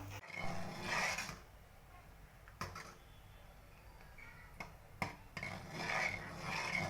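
A utensil scraping and stirring a thick mixture in a cooking pan, in two stretches, with a few sharp knocks against the pan in between.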